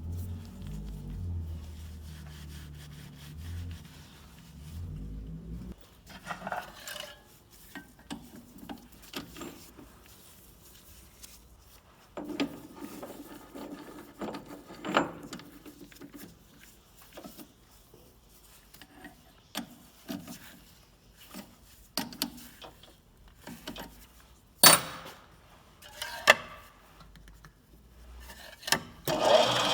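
Steel tools being scrubbed and rubbed clean by hand, in short scraping strokes with scattered metal clinks and knocks. A low hum runs for the first six seconds and stops, and a steady louder noise starts just before the end.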